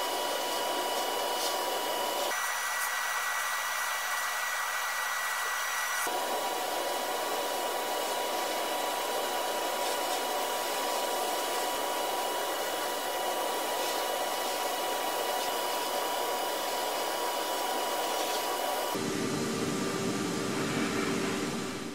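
Abrasive blasting in a blast cabinet: a steady, loud hiss of compressed air and grit from the nozzle striking sheet-metal parts as old paint and rust are stripped to bare metal. Its tone shifts abruptly a few times.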